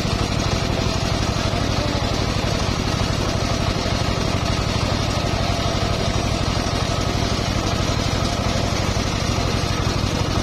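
Homemade table-mounted circular saw ripping lengthwise through a long hardwood beam under load: a steady, even drone from the drive and spinning blade, with the hiss of the blade cutting over it.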